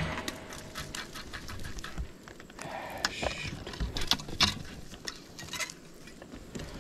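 Irregular small clicks and taps, a few each second, over a faint hiss.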